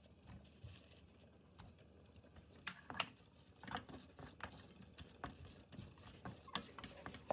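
Faint, scattered light clicks and taps of dishes and utensils at a meal, a dozen or so irregular knocks, with the loudest pair about three seconds in.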